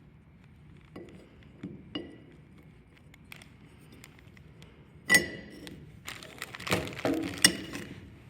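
Metal tools and parts clinking and knocking as they are handled, with one loud ringing clink about five seconds in and a rapid flurry of clinks near the end.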